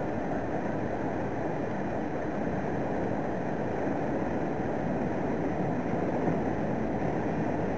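Steady rushing noise of a boat under way on a river: water washing past the hull, with the boat's engine running underneath.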